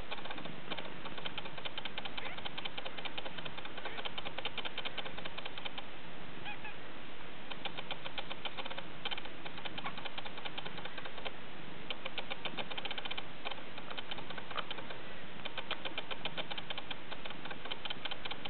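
Bengal kittens nursing from their mother cat: spells of rapid, fine clicking and buzzing a few seconds long, with short breaks between them.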